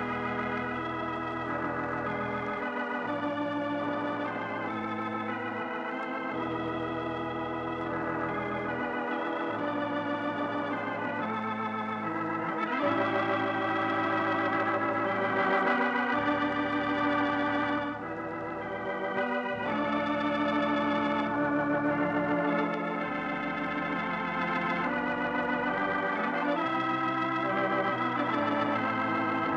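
Organ music playing the program's closing theme: sustained, wavering chords over held bass notes, changing every second or two, with a brief dip in level a little past halfway.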